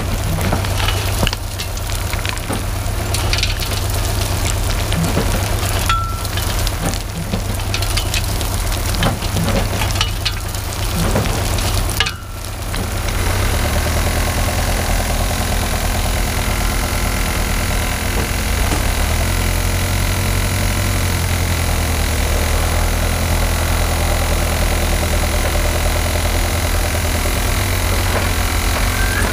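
Dirt and stones rattling and sifting through the wire-mesh screen of a homemade grizzly screener, which a shaker motor vibrates, over the steady running of an engine. The crackle and knocking of falling material stop about twelve seconds in, leaving a steadier machine hum.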